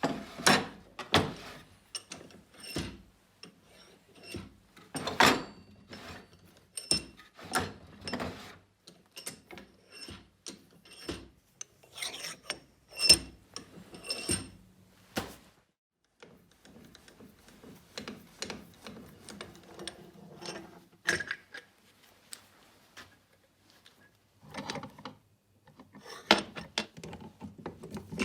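Metal parts of a Wilton bench vise being handled and taken apart: irregular clanks, knocks and scraping, with brief metallic ringing a little before the middle.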